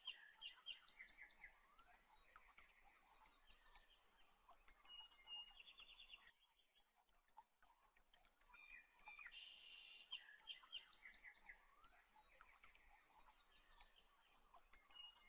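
Faint birdsong, chirps and short rapid trills, in a looped background recording that repeats about every ten seconds.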